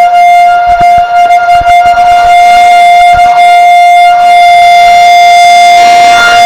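Federal Model 5 rotor siren sounding its daily test, held at full speed as one loud, steady tone with no rise or fall.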